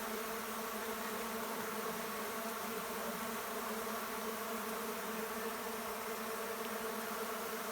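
A crowd of Uruçu nordestina stingless bees (Melipona scutellaris) in a mass flight after rain, their wings making a steady, many-layered buzzing hum.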